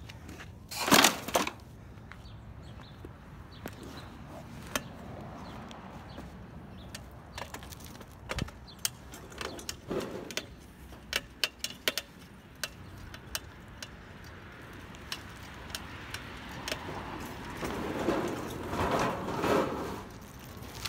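Bicycle and its loaded cart rattling and clicking while being ridden over rough pavement, with a loud clatter about a second in.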